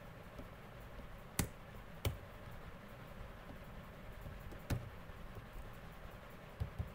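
About five separate sharp clicks from a computer keyboard and mouse while code is being edited, two of them close together near the end, over a faint steady room hiss.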